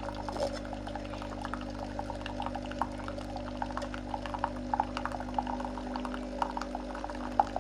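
A hot drink being made: a machine hums steadily while the liquid inside bubbles and crackles with many small pops.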